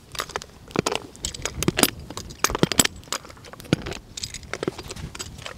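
Pony chewing on its metal bit: irregular metallic clinks and clicks of the bit and bridle.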